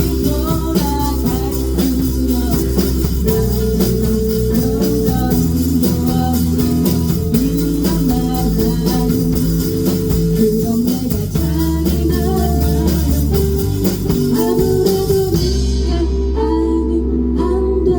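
Live band playing an instrumental passage with guitar, bass and drum kit. The drums drop out about fifteen seconds in, leaving sustained guitar and bass.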